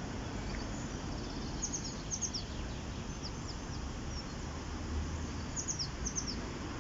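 Steady rush of flowing river water, with a small bird's quick, high, falling chirps in two short bursts, one about two seconds in and another near the end.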